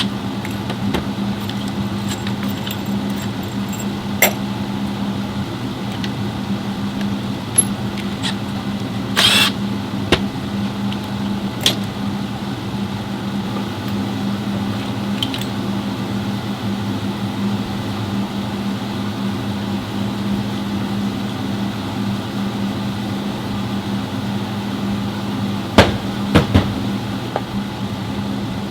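A steady mechanical hum, with a few short metallic clinks at scattered moments.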